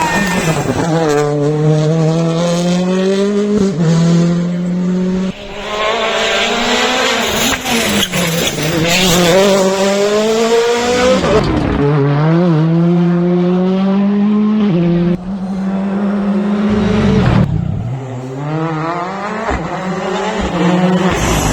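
Rally cars at full attack. The engine pitch climbs hard through each gear and drops sharply at every upshift, several times over. In the second half the pitch falls away low for braking and downshifts, then climbs again.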